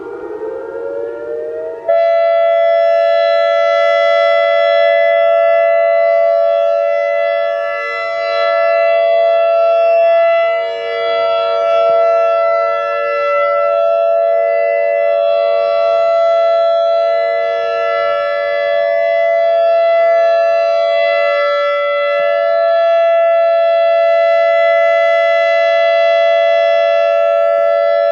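ACA Alertronic AR-1600 electronic outdoor warning siren sounding. For about two seconds it glides up in pitch, then switches abruptly to a loud, steady chord of several tones that it holds for the rest of the time.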